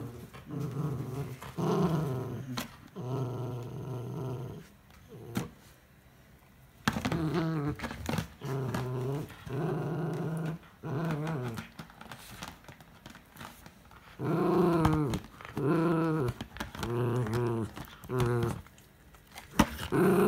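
Miniature schnauzer play-growling in repeated short bouts while tugging at an empty cardboard ice-cream-bar box, with a pause of a few seconds near the middle. A few sharp knocks fall between the growls.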